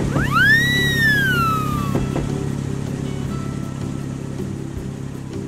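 A cartoon whistle sound effect: one tone sweeps up quickly, then glides slowly down over about two seconds as the toy bus rides down the ramp. Under it are a steady low hum and background music.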